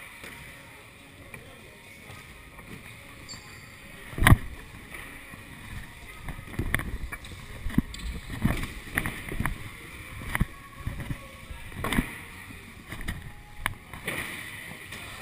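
Wheels rolling fast over skatepark ramps and floor, with a single hard bang about four seconds in, the loudest sound. From about six to thirteen seconds in there is a steady rolling rumble broken by repeated knocks and thuds.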